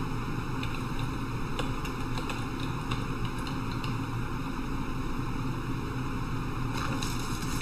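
Steady background hiss and low hum, with a few faint clicks.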